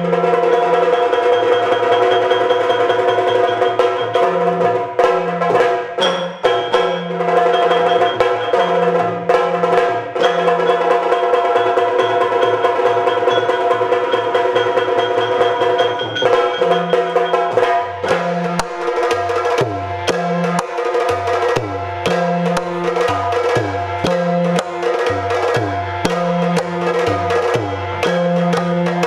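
Instrumental Yakshagana accompaniment with no singing: rapid drum strokes, the ensemble including the chende drum, over a steady held drone, with low notes stepping back and forth underneath.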